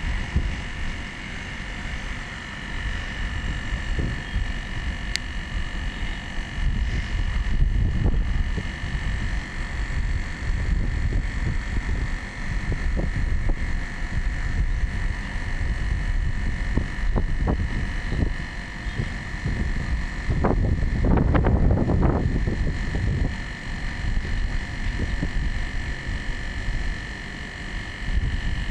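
Outdoor unit of a 2 PK split air conditioner running: a steady high whine over an uneven low rumble, which swells louder about three quarters of the way through.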